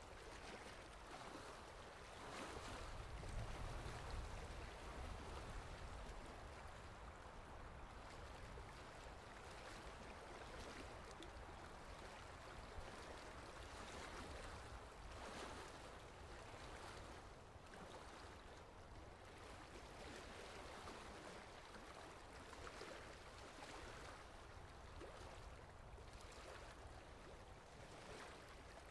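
Faint, steady running water, like a flowing stream, as a relaxing background sound.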